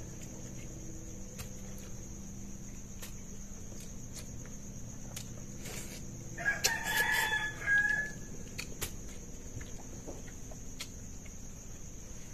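A rooster crows once, starting about six and a half seconds in and lasting about a second and a half, over a steady high chirring of crickets.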